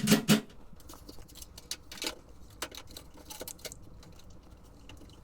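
Small clicks and taps of parts being handled while a front-loading washer's door switch is refitted, with a cluster of sharp clicks right at the start and scattered lighter taps after.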